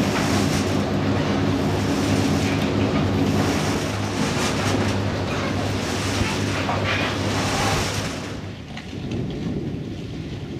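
A boat's engine running steadily, with wind on the microphone. About eight seconds in the engine fades, leaving mostly wind noise.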